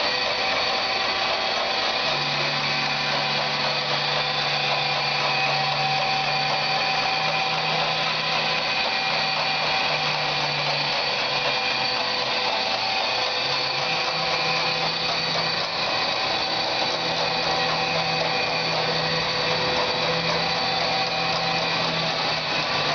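Harrison Alpha 600 CNC lathe running: a steady machine whine with several constant tones over a even noise, joined about two seconds in by a low hum that fades in and out.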